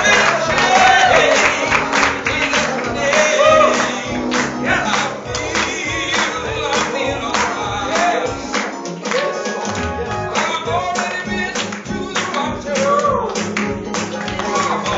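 Lively gospel worship music with voices singing over a quick, steady beat of sharp percussive hits.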